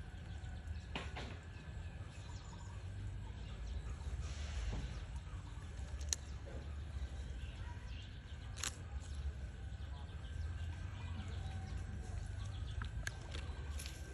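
Steady low rumble, with a few brief, sharp high-pitched sounds about one, six and nine seconds in.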